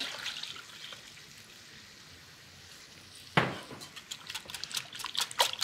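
Milk poured from a glass measuring cup into a glass bowl of beaten eggs, a soft splashing at first. A sharp knock comes about three and a half seconds in, then a wire whisk beats the custard, its rapid strokes clicking against the glass bowl.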